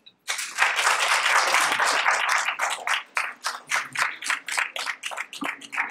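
Audience applauding: a dense burst of clapping that thins out over the last few seconds into scattered separate claps.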